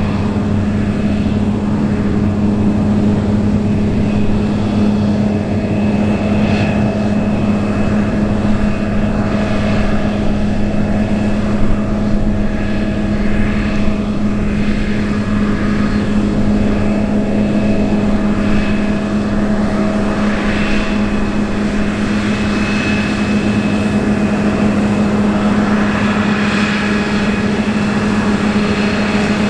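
Large diesel engine of harvest machinery running steadily at constant speed, a loud even hum throughout.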